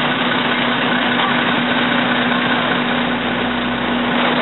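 Vehicle engine idling steadily, with a constant low hum over a steady rushing noise.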